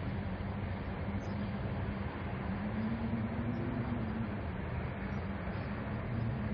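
Wind and rain sound effect: a steady rush of rain-like noise under a low wind tone that swells and rises slightly in pitch midway.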